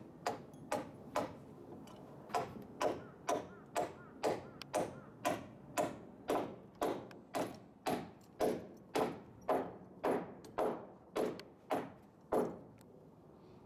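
Claw hammer driving a nail into a timber roof rafter: a steady run of blows, about two a second, each with a short ring. There is a brief pause between blows about two seconds in, and the hammering stops shortly before the end.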